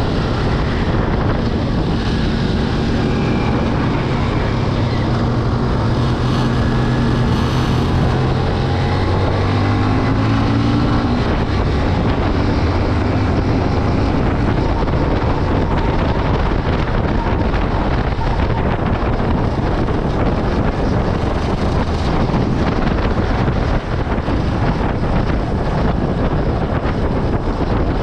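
Yamaha Byson FZ16's single-cylinder four-stroke engine running on its stock exhaust while riding, with heavy wind noise on the microphone. The engine note rises briefly about ten seconds in, then is mostly buried under the wind.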